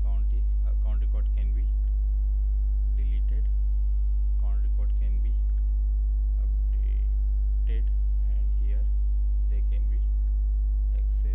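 Steady electrical mains hum: a loud low drone with a stack of even overtones running unchanged, with faint short sounds coming and going over it.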